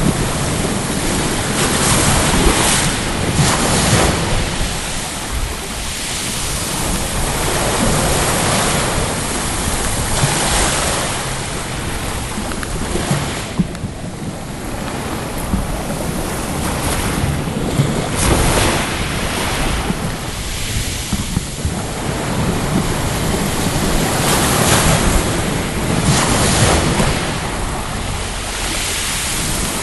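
Sea waves washing onto the shore, swelling and easing every few seconds, with wind buffeting the microphone.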